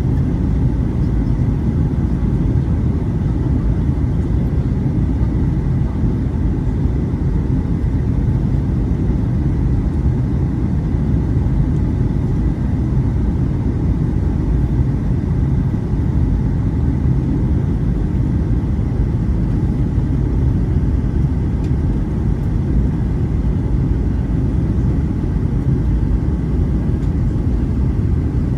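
Steady cabin noise of an Eastar Jet Boeing 737 airliner descending toward landing: a constant low rumble of engines and airflow, with a faint steady high tone.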